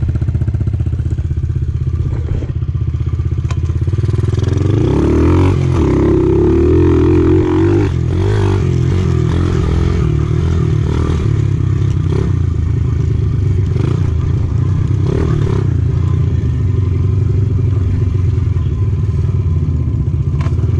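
Small pit bike engine running as the bike is ridden, revving up and wavering in pitch between about four and eight seconds in, then holding a steady speed.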